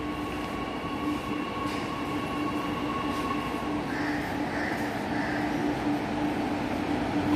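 Chennai Metro electric train drawing into the station: a steady electric whine over running noise, growing gradually louder as it comes along the platform.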